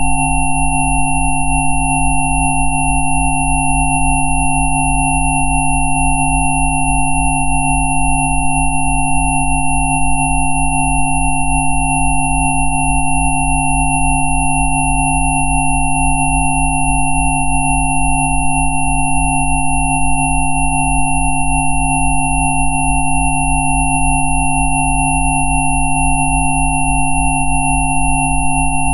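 Several synthesized sine tones of a Rife-frequency track sounding together and held steady, from a deep hum up to a thin high whistle. The lowest tone pulses a few times a second.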